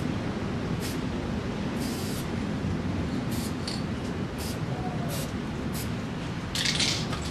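Montana 94 spray can fitted with an NY Fat cap, sprayed in a series of short hisses about once a second, with longer bursts about two seconds in and near the end.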